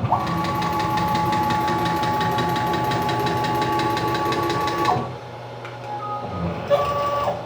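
Stepper motor driving an axis of a CNC-converted PM-727M milling machine: a steady whine with a fast buzzing rhythm for about five seconds that stops suddenly, followed by a second, shorter move near the end.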